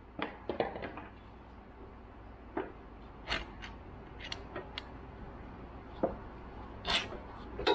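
Irregular metal knocks and clunks as a heavy hydraulic lift cylinder is worked out of a forklift mast, knocking against the mast and chain: a quick cluster about a second in, then single knocks every second or so, the loudest near the end.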